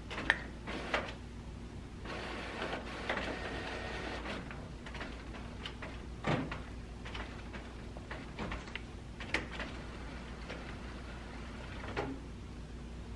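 Desktop printer printing a label sheet: a stretch of mechanical running as the paper feeds through, with scattered sharp clicks and a knock from the mechanism.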